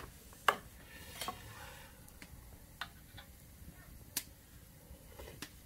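A handful of sharp, irregular clicks and light taps, the loudest about half a second in: a metal ladle or spoon knocking against the cooking pot and bowl while broth is scooped out.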